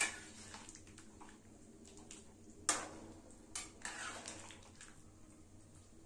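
Steel ladle stirring chicken livers in a metal kadai, knocking and scraping against the pan: a sharp clank right at the start, another a little under three seconds in, then a few lighter clinks and scrapes about a second later.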